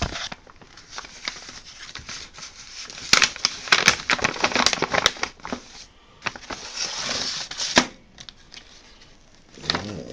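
Plastic component bags crinkling and rustling as they are handled and opened, with small parts clicking; the rustling is busiest about three to five seconds in, and there is a sharp click near eight seconds.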